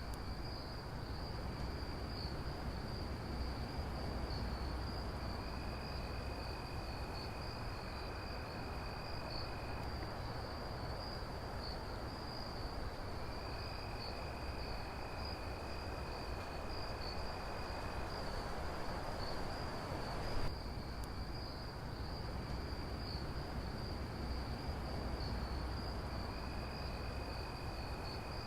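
Night ambience: crickets chirring in a steady high trill, with a lower insect trill that comes and goes, over a steady low hum and hiss. About twenty seconds in there is a brief click, after which the same pattern starts over, as in a looped recording.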